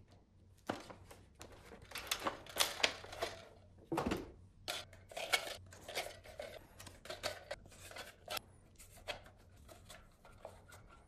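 Light plastic clicks and rattles, irregular and several a second, as a toy foam-dart blaster is handled and foam darts are pushed one by one into its clear plastic magazine.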